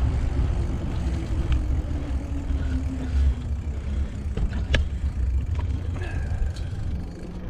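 A car driving past, its tone falling slowly as it goes by, over a steady low rumble, with a few light clicks.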